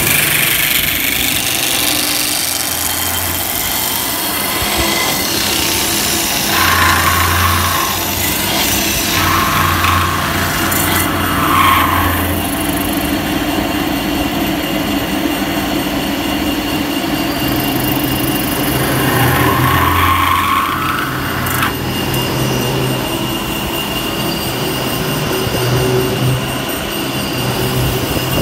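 CNC metal spinning lathe running while its forming roller presses a mild steel blank down onto the spinning mandrel. Louder passes of the roller over the metal come and go every few seconds over the machine's steady running.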